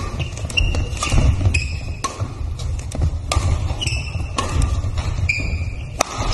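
Badminton doubles rally: sharp racket hits on the shuttlecock about every half second to a second, mixed with short high squeaks of court shoes on the hall floor and dull footfall thuds.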